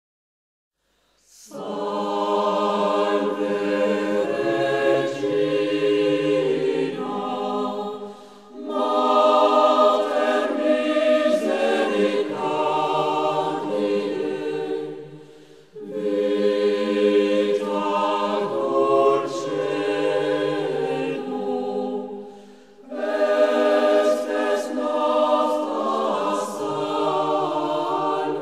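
A choir singing in four long, sustained phrases, each about seven seconds, with a brief pause between them.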